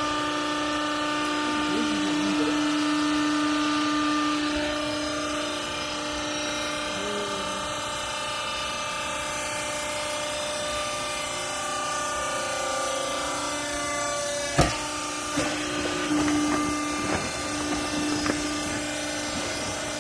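Hydraulic clothing baler running with a steady machine hum, a sharp knock about 15 seconds in, and a few lighter knocks after it.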